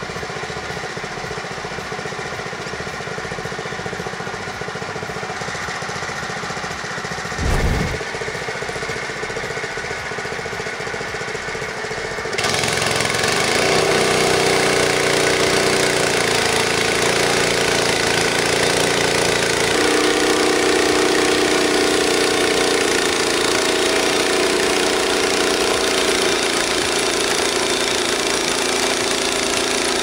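Frontier OS23 portable bandsaw mill's small engine running steadily, with a single thump about seven and a half seconds in. From about twelve seconds in it turns suddenly louder with a hiss as the band blade cuts through a log.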